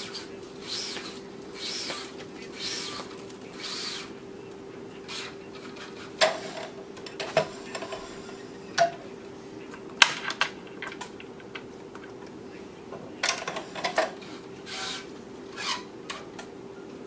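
Tennis racquet being strung on a stringing machine: the string is drawn through the frame with soft rubbing swishes about once a second, then the machine's tensioner and string clamps give sharp metallic clicks and clacks, several in quick runs, over a steady low hum.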